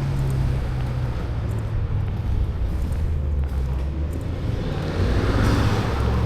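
A motor vehicle's low rumble on the street, with tyre noise swelling near the end as a car comes by.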